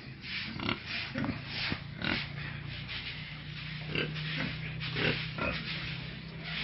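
Pigs in a pen grunting, a string of short separate grunts every half second to a second, over a steady low hum.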